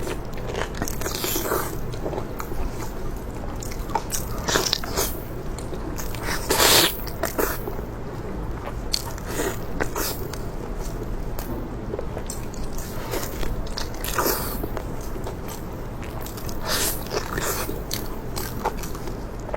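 A person chewing and biting crunchy food close to the microphone, with irregular sharp crunches every second or so; the loudest bite comes a little before seven seconds in.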